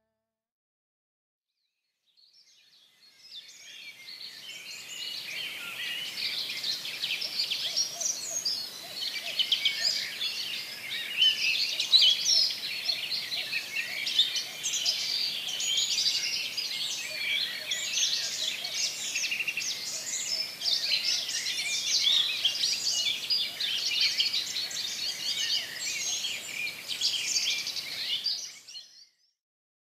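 Many small birds chirping and chattering together in a dense chorus. It fades in about two seconds in and fades out just before the end.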